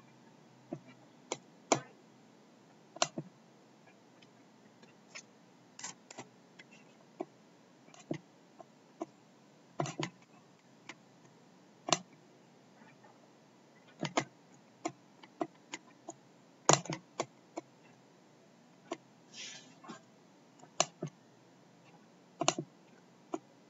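Irregular sharp clicks of a computer mouse, roughly one or two a second, with a brief scrape about twenty seconds in.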